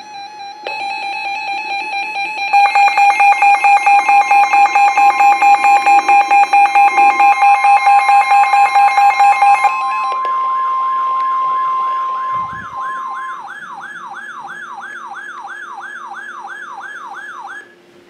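Several NOAA weather alert radios sounding their alarms at once for a flash flood warning. A steady alert tone begins under a second in, joined by rapid beeping at about four beeps a second. From about ten seconds in the beeping gives way to a warbling siren-like alarm, which cuts off just before the end.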